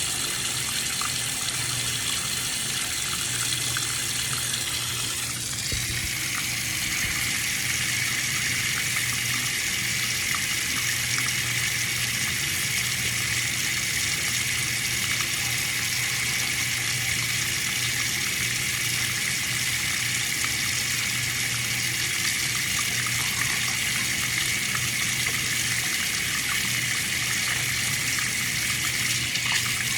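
Water running steadily from a tap, a continuous rush whose tone shifts slightly about five seconds in and then holds steady.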